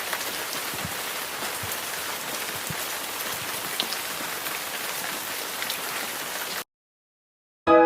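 Steady rain hiss with scattered louder drops, cutting off abruptly near the end. After a second of silence, mallet-percussion music starts.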